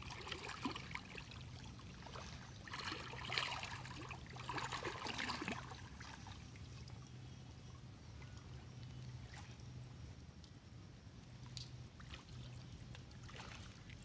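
Shallow river water sloshing and splashing around people wading and swimming, with two louder bouts of splashing about three and five seconds in, over a faint low hum.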